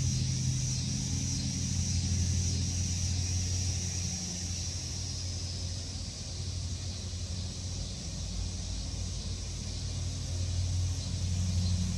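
A steady low mechanical hum, easing a little midway and swelling again near the end, with a faint steady high hiss above it.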